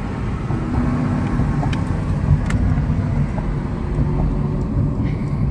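Steady wind and road noise inside a moving car with the windows down and the sunroof open, a heavy low rumble loud enough that the driver calls it noisy.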